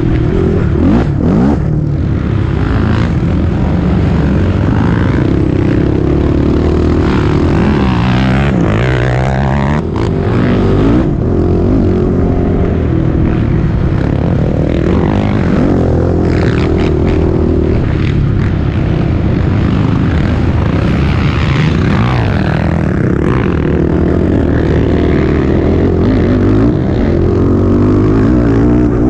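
Racing quad (ATV) engine running hard under load, loud and continuous, its pitch rising and falling as the rider accelerates and backs off, heard up close from the machine itself.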